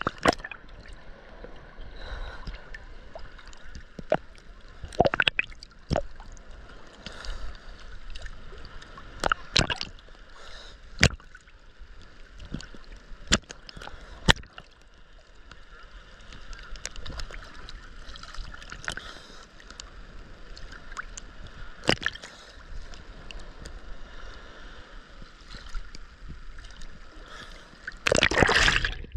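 Sea water sloshing and slapping against a camera held at the surface of choppy waves, with a sharp splash every few seconds. Near the end the camera dips under and a loud rush of water takes over.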